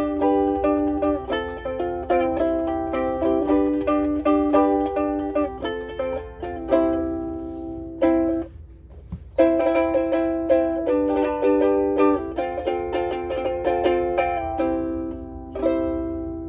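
Blue Wing mahogany soprano ukulele being played: a run of plucked notes and chords, with a short pause about halfway through, and the last chord ringing out and fading near the end.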